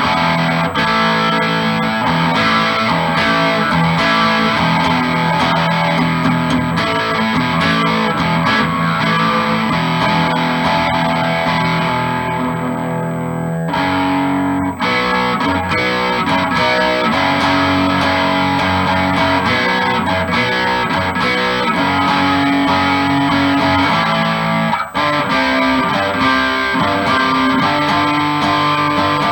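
Electric guitar (G&L Legacy Tribute) played through an amp on the middle-plus-bridge pickup setting, the middle single-coil combined with a Seymour Duncan Little '59 mini humbucker in the bridge. Ringing chords that change at a brief break about halfway through and another past three-quarters.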